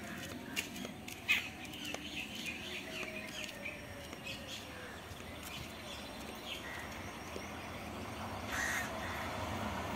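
Birds calling, with scattered short chirps and a sharper call about a second in, over a steady low background hum. Over the last couple of seconds a faint rumble builds as an electric local train approaches.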